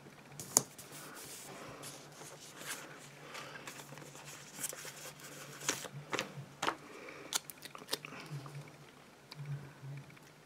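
Paper stickers and planner pages handled by hand: stickers pressed onto the page, with soft crinkling and rustling and scattered light taps and clicks, the sharpest about half a second in.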